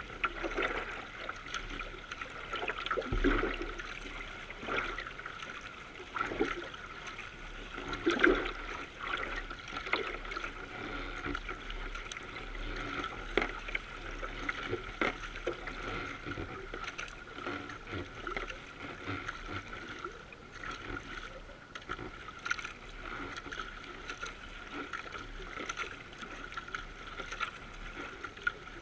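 Water rushing and splashing against a kayak's bow as the boat is paddled along, with louder splashing surges every second or two.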